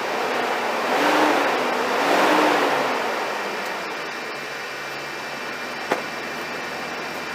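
Ford F450 truck engine running after sitting about four years on old gas, revved up twice and then settling to a steady idle. A single sharp click about six seconds in.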